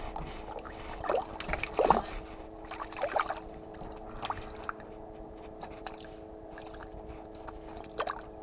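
Short, irregular splashes and sloshes of water in an ice-fishing hole as a hand works in it, over a steady hum.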